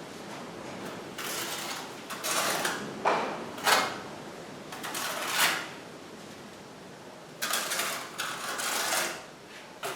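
Steel spatula and trowel scraping tile adhesive over the back of a natural stone, in several rasping strokes with a pause in the middle.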